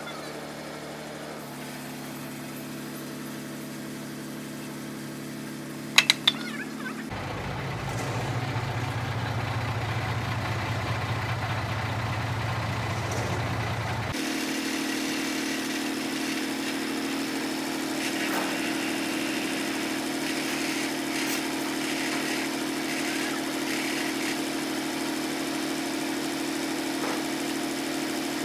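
Engines idling steadily. First the crane truck's engine runs while its boom holds a steel deck plate, with three sharp metal clanks about six seconds in and a deeper, louder rumble from about seven seconds. From about halfway the sound changes to a forklift engine running close by as it presses the curved steel sheet onto the truck bed.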